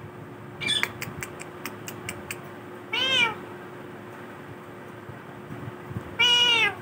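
Ringneck parrot making meow-like calls: two drawn-out calls that rise and fall in pitch, the second longer and the loudest. Before them come a short squawk and a run of quick clicks.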